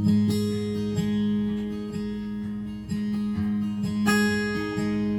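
Background music: the acoustic guitar intro of a country song, strummed chords with no singing yet.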